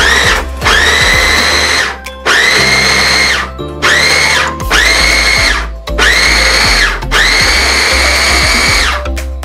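Small electric food chopper pulsed about six times in a row, its motor whining up to speed and winding down in bursts of one to two seconds each, as it chops onion in the bowl.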